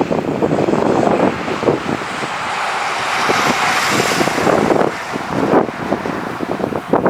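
Jet airliner passing, a rushing engine noise that swells to a peak about halfway through and then fades, with wind buffeting the microphone.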